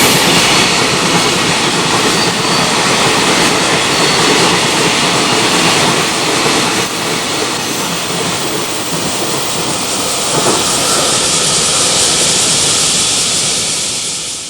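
Freight train passing, its wagons' wheels rumbling and clattering over the rail joints, fading out near the end.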